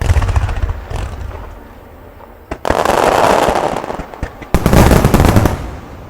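Fireworks finale: aerial shells bursting in quick succession with dense crackling. There are sharp booms at the start and about a second in, a long crackling barrage from about two and a half seconds, and a second, loudest barrage near the end.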